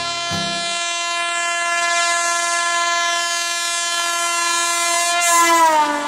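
Electric locomotive horn held in one long steady blast, its pitch dropping near the end as the speeding train passes. The rush of the passing train swells at the same moment.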